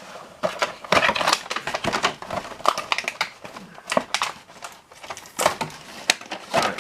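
Plastic blister packaging being handled and pulled apart, giving off a dense, irregular run of sharp clicks and crackles.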